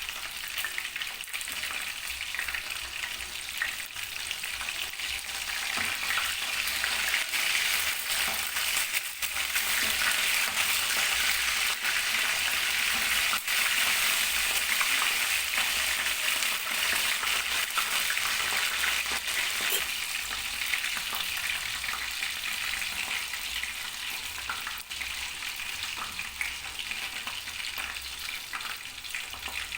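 Food sizzling in hot oil in a pan: a steady crackling hiss that grows louder in the middle and eases toward the end.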